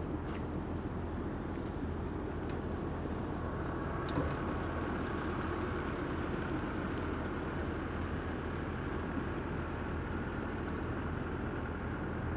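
Steady low outdoor rumble of harbour ambience, with a faint higher hum coming in about three seconds in and a faint click about four seconds in.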